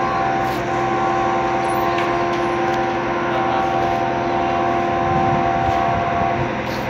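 An approaching locomotive sounds a long horn blast with several tones at once, held for about six seconds before it cuts off near the end.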